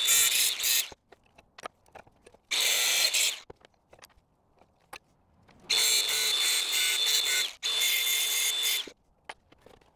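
Cordless angle grinder cutting the head off a bolt held in a vise, in four bursts with a steady high whine: one at the start, one about three seconds in, and two back to back from about six to nine seconds in. Light clicks and knocks come between the cuts.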